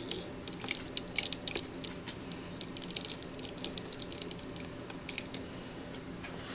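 Light, irregular clicks and taps of hard plastic in scattered clusters as the small snap-fit parts of a 1/144 scale Gunpla model of the MS-09 Dom are handled and fitted.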